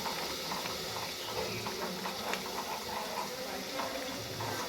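Spice paste of onion, garlic and tomato frying in oil in a pan, sizzling with many small crackling pops as it is cooked down until the oil separates.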